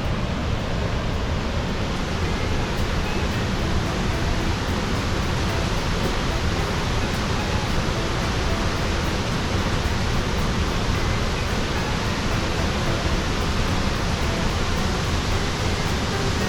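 Steady rush of water from Steelhead Falls on the Deschutes River, an even, unbroken noise.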